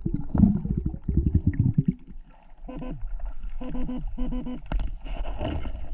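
Underwater sound of a stream: low gurgling water for the first two seconds, then a pitched pulse repeating about once a second.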